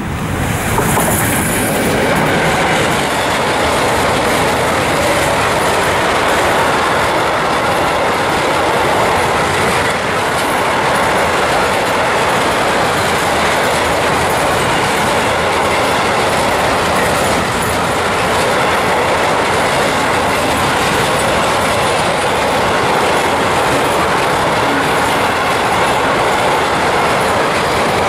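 Long freight train of tank wagons rolling past at close range behind two electric locomotives: a loud, steady rumble and clatter of steel wheels on rail, with a brief high hiss about a second in.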